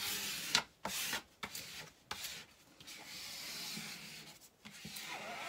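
Hands sweeping and rubbing across the protective sheet of a diamond painting canvas: a run of dry swishing strokes of uneven length, with one longer stroke in the middle, pressing the sheet flat to chase out the air.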